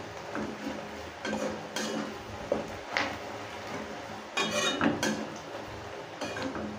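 A spatula scraping and clinking against a metal kadai, stirring ground coriander and spices into fried onions. It comes in irregular strokes, with a few sharper clinks about three seconds in and again between four and five seconds.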